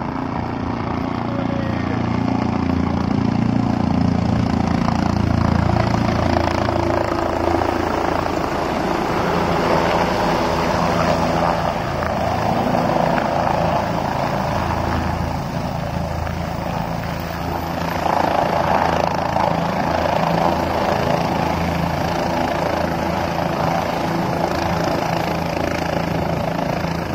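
Helicopter coming in to land, its rotor and engine loud and steady.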